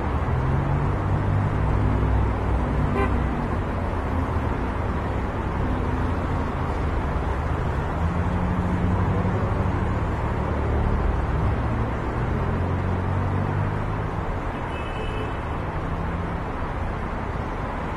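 City road traffic: car and bus engines passing in a steady stream, with a brief high horn toot near the end.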